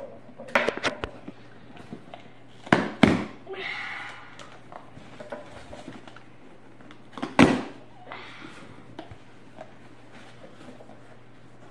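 Cardboard shipping box being ripped open by hand: loud sharp snaps of tape and flaps tearing loose about half a second, three seconds and seven and a half seconds in, each followed by a short stretch of rustling cardboard.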